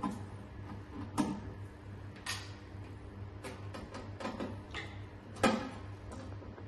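About seven irregular clicks and light knocks of small screws and metal parts being handled as screws are taken out of a hydrofacial machine's top panel. The sharpest knock comes about five and a half seconds in.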